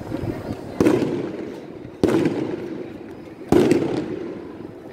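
Three loud firework bangs, each dying away over about a second, spaced roughly a second and a half apart, over the murmur of a large crowd.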